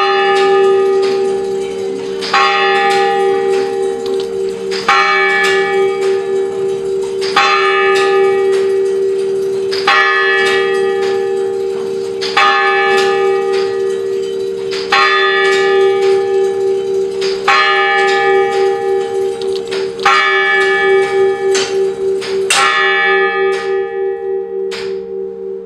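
Tower-clock bell striking the hour, one stroke about every two and a half seconds, about ten strokes in all. Each stroke rings on with a steady, beating hum that carries through to the next, and the last stroke fades away near the end.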